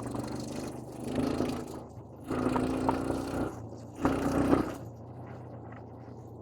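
An engine running with a steady low hum, getting louder twice for about a second each as it is revved.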